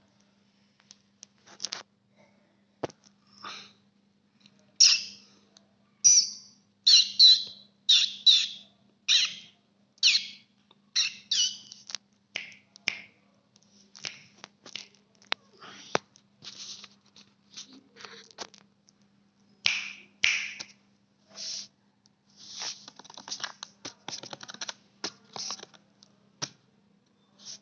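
Kitten mewing over and over in short, high-pitched cries, about one a second, among a few sharp clicks.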